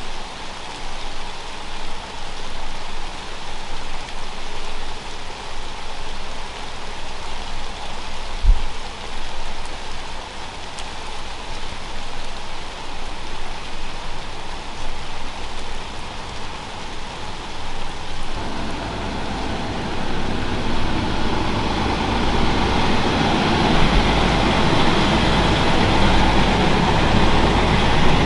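Steady rain, with a single low thump about eight seconds in. From about two-thirds of the way through, a Stadler Citylink tram-train is heard approaching and running past, growing louder to the end.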